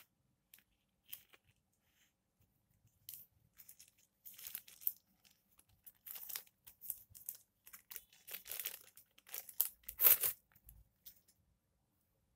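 Packaging being crinkled and torn by hand in a run of short, irregular rustles, loudest near the end.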